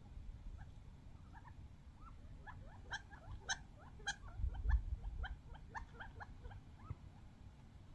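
A flock of wild quail giving many short, soft rising chirps and calls as they squabble over bird seed, busiest in the middle, over a low rumble that swells about halfway through.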